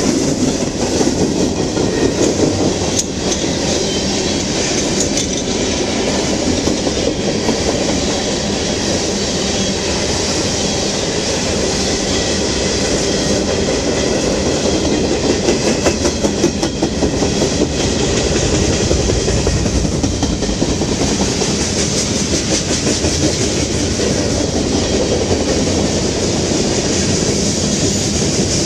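Freight cars of a passing CSX freight train rolling by close, with a steady loud rumble and scattered clicks of the wheels over the rails.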